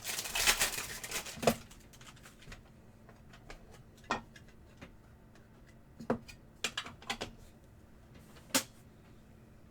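A 2024 Bowman Chrome Choice trading-card box being opened and its cards handled. A dense rustle of packaging comes first, then light, scattered clicks and taps of cardboard and cards, about half a dozen.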